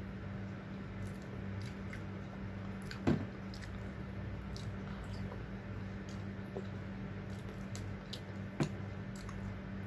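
A person chewing food close to the microphone, with soft wet mouth and lip smacks. Two sharper, louder smacks come about three seconds in and near the end, over a steady low hum.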